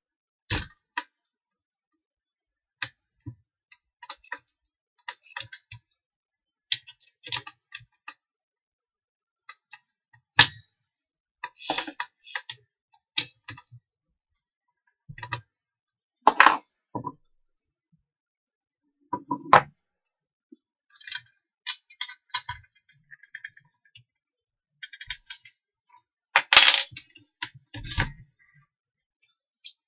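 Scattered clicks, knocks and small metallic rattles from hands adjusting a drill and its bit in a bench drill stand, to set it to drill deeper. A few louder knocks come now and then, and the drill motor is not running.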